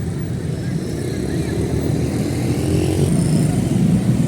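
Road traffic: a steady low rumble of passing vehicle engines, growing a little louder near the end.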